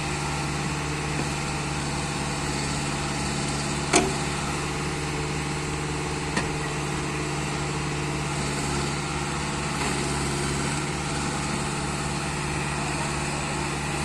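Backhoe loader's engine running steadily, with a sharp knock about four seconds in and a lighter one a couple of seconds later.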